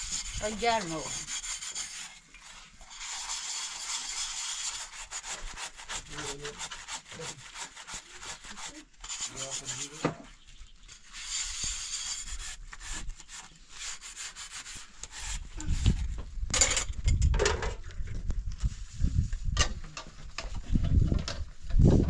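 Metal dishes being scrubbed by hand: repeated rough rubbing and scraping of a scourer inside a metal cup, coming in patches. In the last several seconds, strong low rumbling thuds take over.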